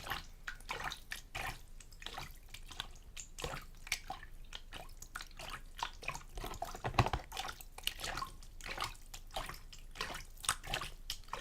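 A small amount of water sloshed back and forth in a container, making many small, irregular splashes and drips.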